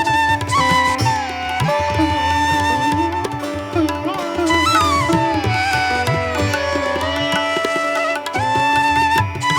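Instrumental background music: a melody with sliding, bending notes, in an Indian classical style, over hand-drum beats.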